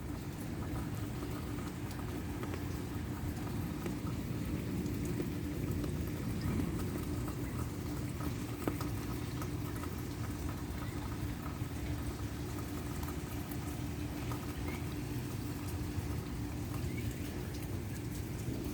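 Light rain pattering steadily, with a low, even rumble and a faint steady hum underneath.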